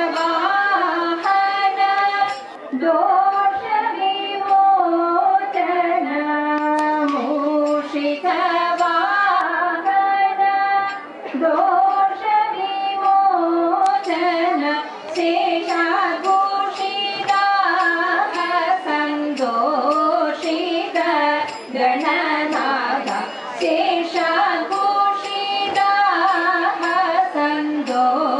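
Women singing a Thiruvathirakali song, a melody of held notes moving step by step, with only brief pauses between lines.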